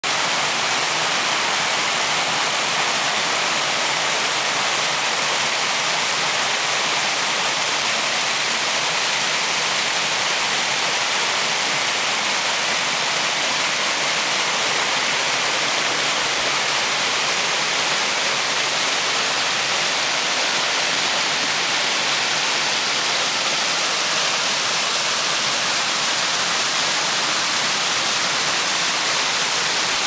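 Small river waterfall rushing steadily over rock ledges into a pool, a constant even hiss of falling water.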